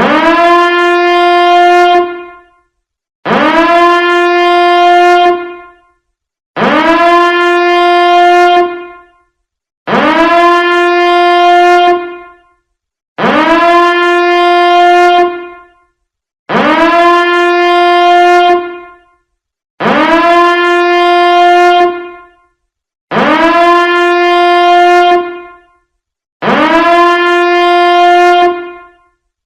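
Biohazard alarm sounding: a loud horn-like tone blast that slides up briefly at the start, holds steady for about two seconds and fades, repeated nine times at even intervals of just over three seconds.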